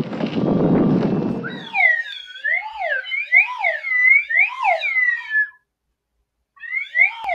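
Wind rumbling on a microphone for about a second and a half. Then a slide whistle is blown in quick swoops up and down in pitch, stops for about a second, and swoops again near the end.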